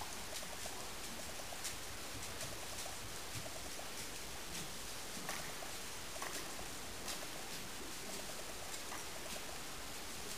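Horse walking on a soft sand arena surface: a steady faint hiss with soft, irregular clicks of hoof falls and tack.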